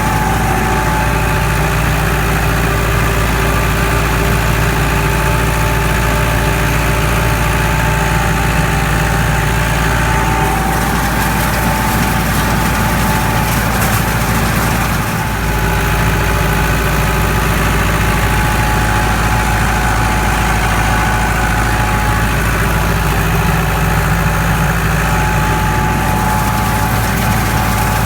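Farm tractor engine running steadily at a constant speed, with a brief dip in level about halfway through.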